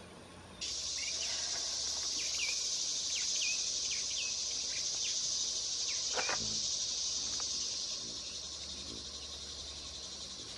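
A steady, high-pitched insect chorus that starts abruptly just under a second in and fades over the last few seconds, with short falling bird chirps over it for the first six seconds and a single knock about six seconds in.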